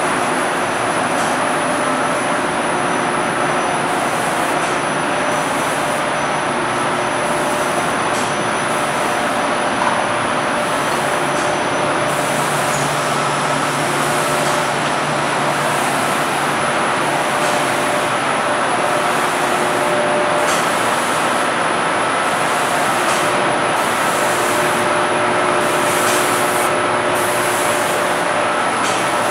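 Makor Q-One automatic spray machine running and spraying: a loud, steady rush of air with a few faint steady whining tones riding on it.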